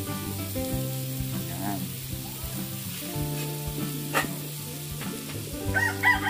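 Shredded chicken, onion and hotdog sizzling in oil in a metal wok as chicken bouillon cubes melt in, under background music of steady sustained notes. One sharp clank about four seconds in, and a rooster starts crowing near the end.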